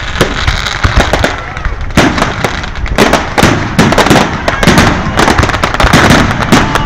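Fireworks barrage, many shells launched and bursting together: a dense, loud run of bangs and crackles, several cracks a second.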